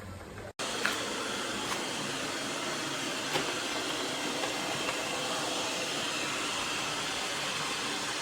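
Robot vacuum cleaner running with a steady whirring hiss and a few light clicks, starting abruptly about half a second in.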